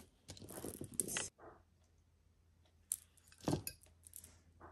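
Beads of a necklace clicking and clinking as it is handled, in a few short bursts with a sharp click about three seconds in.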